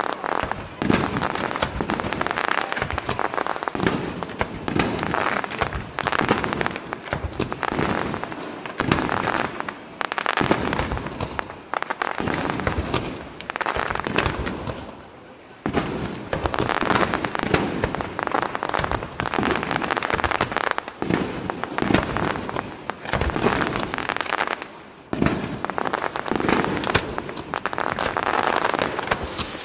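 Aerial fireworks shells bursting in rapid succession: a continuous barrage of bangs and crackling, with two short lulls, about halfway through and again later on.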